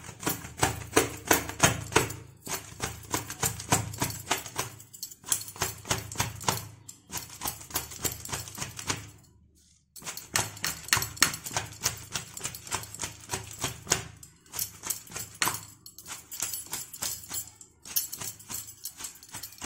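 Hands clapping and slapping a hot layered paratha between the palms in quick runs of a few slaps a second, with short pauses between runs. The beating breaks the soft, freshly cooked paratha into flaky shreds: the 'pitai' or 'chhera' paratha.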